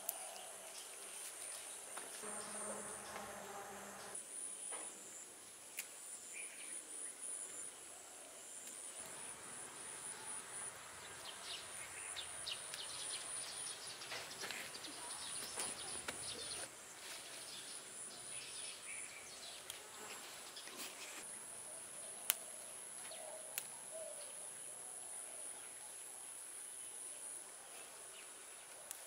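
Insects chirping steadily in a high, pulsing drone, with faint rustling around the middle and a couple of sharp ticks later on.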